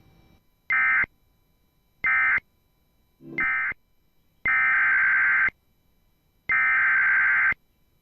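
Emergency Alert System SAME digital data bursts, a harsh two-tone electronic warble. First come three short end-of-message bursts, then, from about four and a half seconds in, the longer header bursts that open the next alert, each about a second long with a second's gap between.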